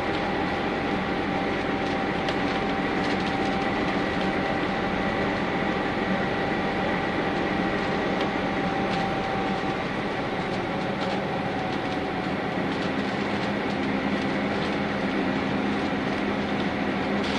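Interior running noise of a Nissan Diesel UA city bus with a CNG-fuelled PU6 engine, heard from inside the cabin while under way. A steady drone carries two thin steady whines that fade about ten seconds in, and a lower hum grows in the second half.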